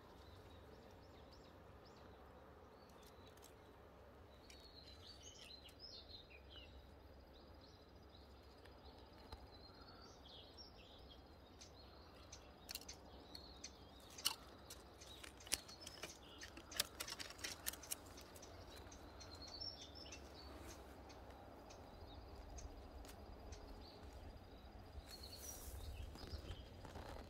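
Faint outdoor quiet with short, distant bird chirps every few seconds. A scatter of soft, sharp clicks comes in the middle.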